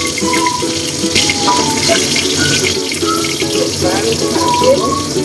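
Hot oil sizzling and crackling in a wok as garlic and other small pieces fry, a steady hiss with scattered pops. Background music with a repeating melody plays over it.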